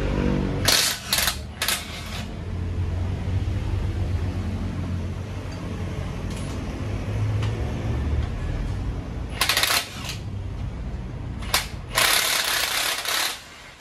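Impact wrench running in short bursts on bolts: three quick bursts at the start and several more near the end, the last over a second long. A steady low hum runs underneath.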